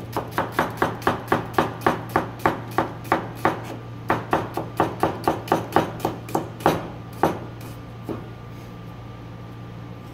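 Chef's knife slicing an onion on a plastic cutting board, the blade knocking on the board in a steady rhythm of about three to four strokes a second. The strokes stop about seven seconds in, with one more a second later, over a steady low hum.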